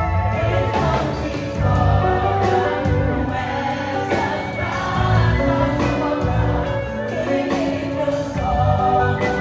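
Gospel worship song performed live: voices singing together over a band with a steady drum beat.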